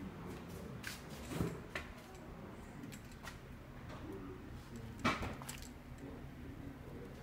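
Clunks and knocks of a refrigerator door being opened and closed, a few short ones, the two loudest about a second and a half in and about five seconds in.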